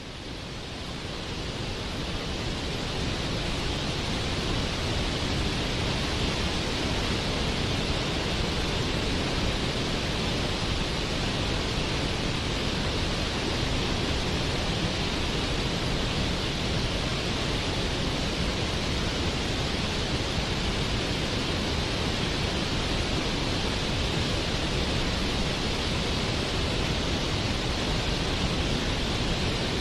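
Steady rushing, hissing water of a waterfall, fading in over the first few seconds and then holding an even level.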